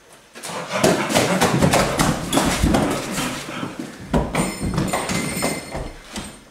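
A young man's loud, strained groaning and yelling, faked stomach distress. Scuffing footsteps can be heard as he hurries off.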